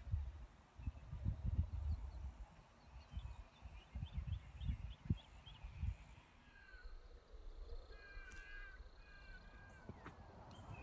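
Wind buffeting the microphone in low, uneven rumbles, with birds calling outdoors: a quick run of short high chirps, then a few repeated harsher calls in the second half.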